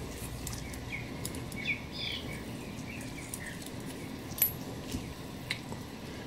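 A few faint high chirps, with two light clicks later on from the clock mainspring being handled while it is greased.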